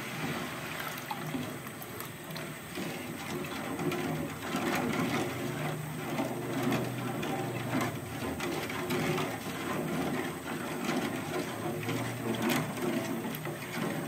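Palm-sugar syrup boiling in a pan: a steady bubbling with many small pops.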